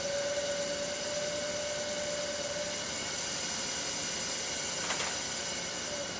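Permanent-magnet DC servo motor running under a servo drive, making a steady whine with several higher tones. There is one short click about five seconds in.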